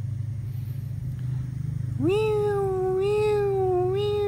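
A single long, high vocal call that rises sharply about two seconds in and then holds a slightly wavering note, over a steady low hum.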